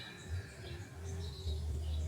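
Small birds chirping faintly in thin, high notes, over a low rumble that swells about a second in.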